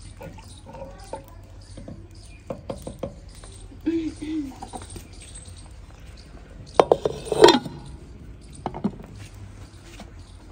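Wooden ladle knocking and scraping in a terracotta cooking pot, then the clay lid set down on the pot with a sharp clattering clink about seven seconds in, the loudest sound, and one more knock near the end.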